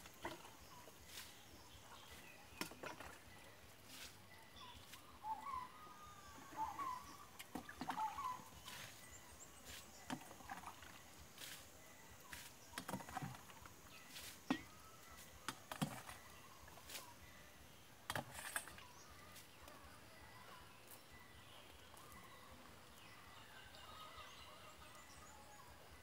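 Quiet outdoor ambience with faint bird calls, a cluster of short chirps a few seconds in, and scattered sharp clicks, busiest through the middle.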